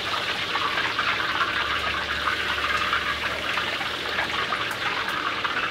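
Hot oil ladled over a steamed fish, sizzling steadily with fine crackling as it crisps the fish's scales.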